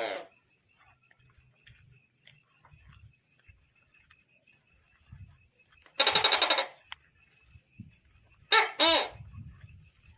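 Tokay gecko calling: a quick rattle about six seconds in, then one two-syllable "tok-keh" call a couple of seconds later. Under it runs a steady high-pitched hum of night insects.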